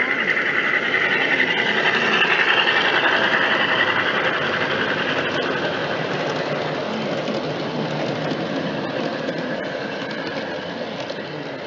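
G scale model freight train passing close by: the locomotive's motor and gears whirring, then the wheels of a long string of covered hopper cars rattling over the track. The sound peaks a few seconds in and slowly fades as the train moves away.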